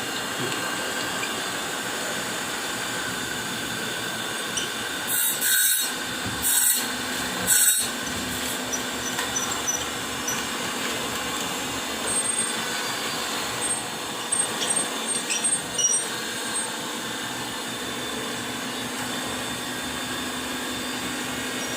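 Surface grinder's abrasive wheel grinding a slot in a hardened D2 steel flat bar: a steady hiss with whining tones, broken by a few short, harsher bursts about five to eight seconds in.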